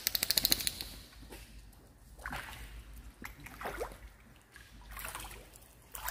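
A duck splashing on the pond: a quick run of about a dozen splashy beats right at the start, then a few separate lighter splashes as it moves and dives.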